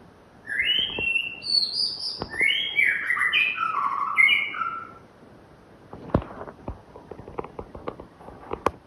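White-rumped shama singing a fast phrase of whistled notes that step downward in pitch over about four seconds, followed by a run of sharp clicks.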